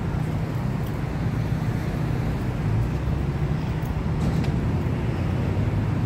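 An engine running steadily, a low even drone, with a few faint clicks over it.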